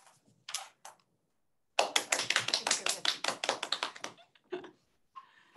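A few people clapping for about two seconds, with a couple of short taps just before.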